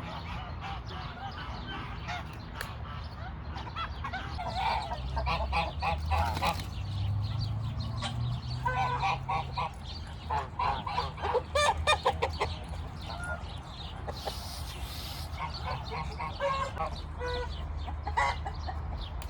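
A flock of farm ducks and chickens calling. The calls come in several bouts of rapid, repeated notes, with the busiest stretch in the middle.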